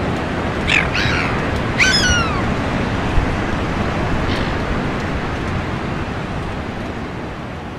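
Gulls calling: two short calls about a second in, then a longer falling mewing call, over the steady noise of surf breaking on the beach. The whole fades down near the end.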